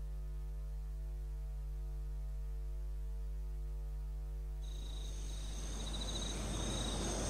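Steady low electrical mains hum. A little over halfway through, a high steady whine with a hiss comes in suddenly and grows slightly louder.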